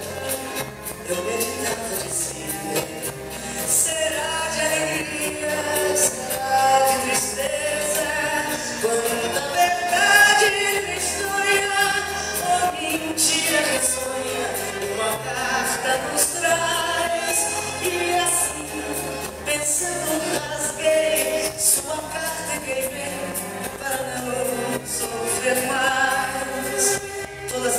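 A song: a solo voice sings with vibrato over instrumental backing music.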